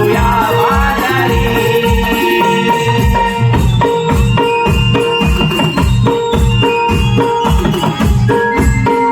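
Naman folk music with no singing: a drum keeps a steady beat under long held keyboard notes, with jingling percussion on top.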